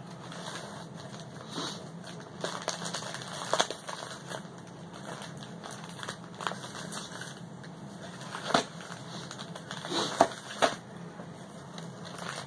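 Gift wrapping paper being torn and crumpled as a present is unwrapped: continuous rustling and crinkling with sharp rips now and then.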